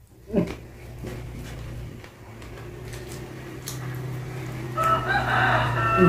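A rooster crowing, one long call that starts about five seconds in and is the loudest sound, over a steady low hum.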